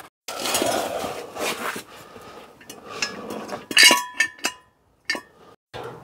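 Metal tools clinking against a van's front brake disc and caliper. The loudest is a sharp ringing clink about four seconds in, which comes after a spell of rasping scrapes and scattered clicks.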